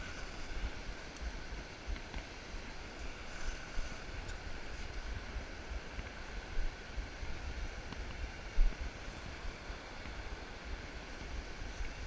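Wind buffeting the microphone in low gusts over a steady wash of surf, with one louder bump about eight and a half seconds in.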